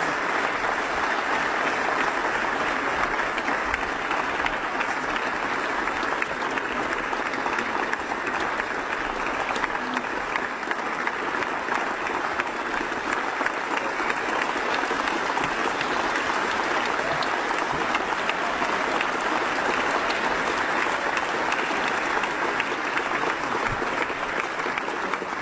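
Long, steady applause from the members of a parliamentary chamber.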